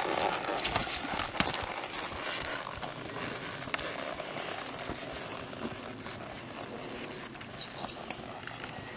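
Hoofbeats of a ridden Tennessee Walking Horse moving at a gait over grass and dirt: a quick, uneven run of soft footfalls, loudest in the first second or so and fading as the horse moves away.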